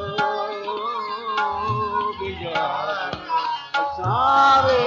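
Multani kafi music: tabla strokes, with deep bass strokes now and then, under sustained melodic lines. A voice glides through a held note near the end.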